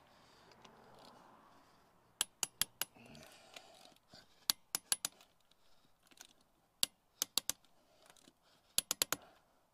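Click-type torque wrench clicking on a wheel's lug nuts: short runs of three or four sharp metallic clicks, five times, each run marking a nut reaching its set torque of 100 foot-pounds.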